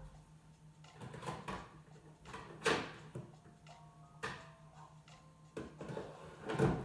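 Dishes and kitchenware knocking and clinking as they are lifted out of a dishwasher: a few scattered clatters, some with a short ring, the loudest about three seconds in and near the end.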